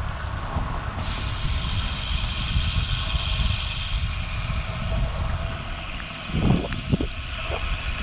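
Wind buffeting the camera microphone and tyre noise from a road bike rolling on a concrete road, a steady rumble with a brighter hiss that comes in suddenly about a second in. Two short louder whooshes or bumps stand out about six and a half seconds in.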